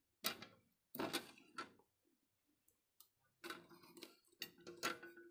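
Clicks and knocks from handling a Shimadzu ATX analytical balance's glass draft shield and weighing pan: a few separate knocks in the first two seconds, then a busier run of them in the second half.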